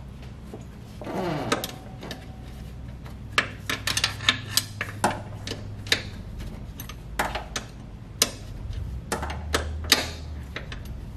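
Ratchet wrench clicking in irregular spurts, with sharp metal clinks and knocks, as the brake booster's rear mounting bolts are worked loose from the firewall. A short falling squeal comes about a second in.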